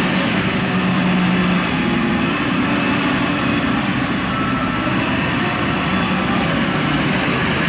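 Diesel engines of two hydraulic crawler excavators, a Kobelco SK200 nearest and a Hitachi ZX200LC long-reach, running steadily under working load as their booms, arms and swing move soil. The engine note shifts a little in pitch as the load changes.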